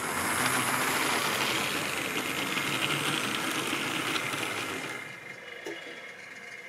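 Model railway train, a small diesel shunter hauling tank wagons, running past at close range: a steady whirring rattle of the locomotive's electric motor and the wheels on the rails. The noise drops away about five seconds in as the train slows to a stop.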